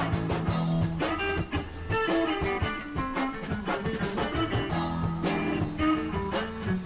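Background music led by guitar, with drums keeping a steady beat.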